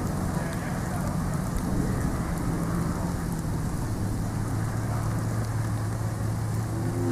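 Steady hiss of rain with a Jeep engine idling underneath, its low hum shifting lower about four seconds in.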